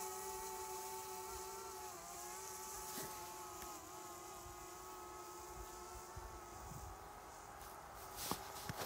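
Camera drone's propellers humming, a steady buzzing whine that wavers slightly in pitch and slowly grows fainter as the drone flies off. A few sharp clicks near the end.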